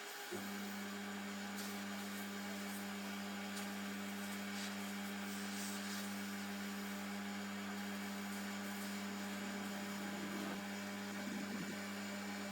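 Steady electrical mains-type hum that switches on abruptly just after the start and holds level over a constant hiss, with a few faint knocks near the end.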